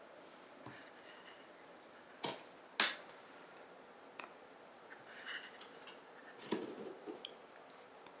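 Cats' paws and claws on a cardboard box: two sharp taps about two and three seconds in, then a run of scuffs and knocks as a kitten climbs onto the box's edge.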